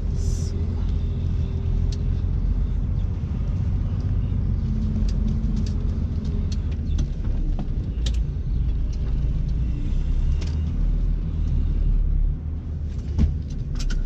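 Truck's diesel engine running at low speed, heard from inside the cab as a steady low rumble. There is a short hiss right at the start and a few light clicks along the way.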